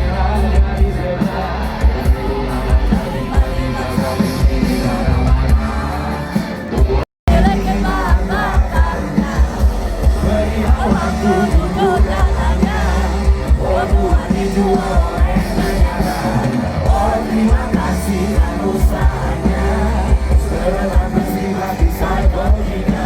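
Live pop-rock band playing with a singer, with a heavy bass beat. The sound cuts out for a split second about seven seconds in.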